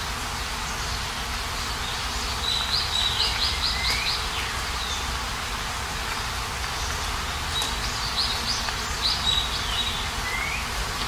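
Steady rain hiss, with a songbird singing twice over it: each phrase a quick run of high notes ending in a short sliding note, about two and a half seconds in and again about seven and a half seconds in.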